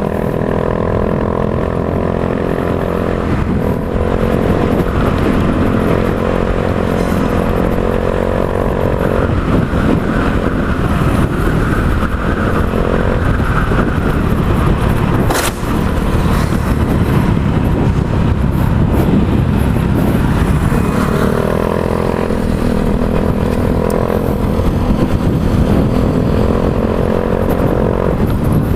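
Yamaha Mio i 125 scooter's single-cylinder engine running through an Apido V3 aftermarket exhaust pipe, with a crisp note. Its pitch rises and falls in stretches of a few seconds as the throttle is worked, and there is one sharp click about halfway through.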